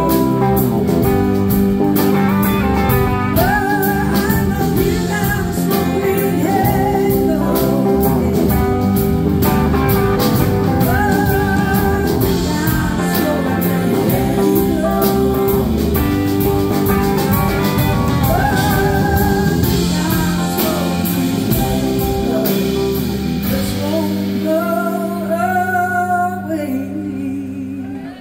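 Live electric blues-rock band: electric slide guitar playing a solo of wavering, gliding notes over bass, guitars and a full drum kit. About 24 seconds in the drums drop away and the music thins and quietens under a last sliding guitar phrase.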